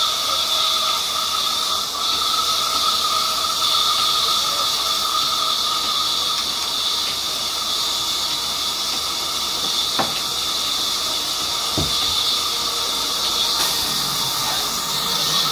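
Large wheel band saw running steadily with a high hiss and a steady whine as mahogany boards are fed through it, with one sharp knock about ten seconds in.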